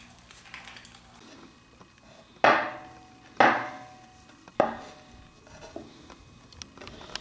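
Metal parts of a ball screw assembly knocking on a plywood board: three loud clunks, each with a short metallic ring, about a second apart, followed by a few lighter clinks.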